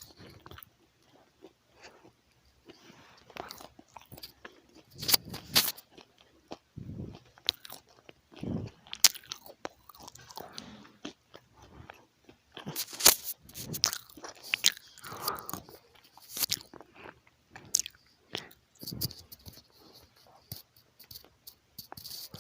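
Close-miked crunching and chewing of crunchy food, in irregular bites and crunches with short pauses between them.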